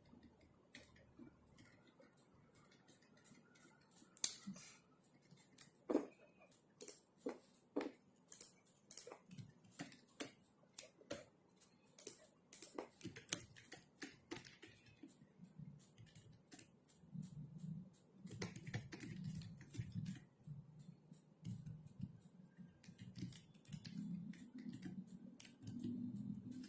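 Typing on a computer keyboard: soft, irregular key clicks in quick runs and pauses. A low, uneven sound sits underneath in the second half.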